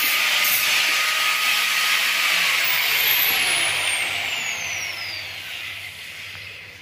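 Electric power tool motor running with a steady whirring hiss, then switched off a little over two seconds in: its whine falls steadily in pitch as it winds down, and the sound fades away toward the end.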